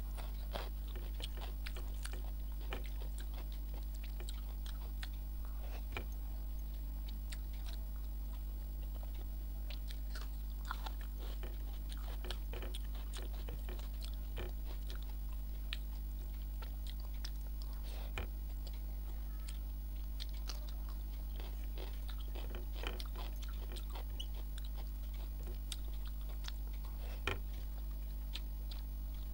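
Close-up chewing and mouth sounds of someone eating rice and egg omelet curry by hand, with soft smacks and clicks scattered throughout, over a steady low hum.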